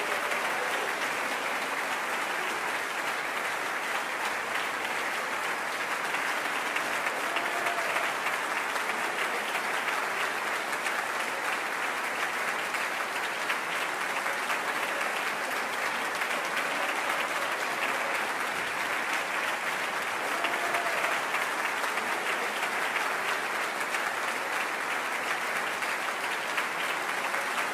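Large audience applauding steadily with a dense, even clatter of many hands.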